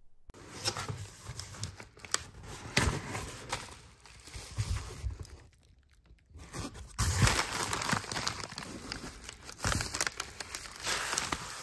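Bubble wrap and cardboard packaging crinkling and rustling as a box is opened and its wrapped contents handled, with many small crackles and a brief pause a little past the middle.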